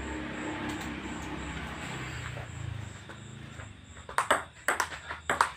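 Table-tennis rally: a ping-pong ball clicking off paddles and a bare board table in a quick, uneven run of sharp taps starting about four seconds in. Before the rally there is only a low steady hum.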